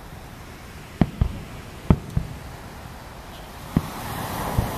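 Aerial firework shells bursting: a string of sharp booms, about six in under five seconds, coming in pairs and singles. A rush of noise swells near the end.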